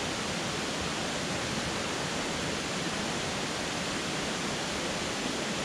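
Steady rush of a river running over rapids.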